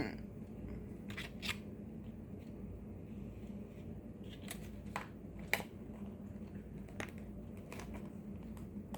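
A few faint, irregular clicks and taps over a steady low hum, like small handling noises.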